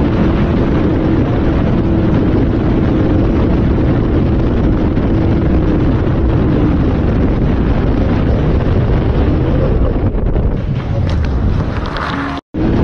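Motorboat running fast over open water: a steady engine drone under heavy wind buffeting the microphone. Spray splashes over the bow near the end, and the sound cuts off suddenly.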